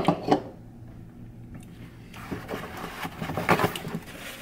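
Two sharp knocks right at the start, then about two seconds of paper crinkling and rustling as a paper towel is crumpled in the hands, loudest shortly before the end.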